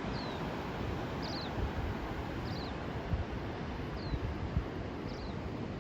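Wind buffeting the microphone outdoors, with a small bird repeating a short high chirp about every second and a half.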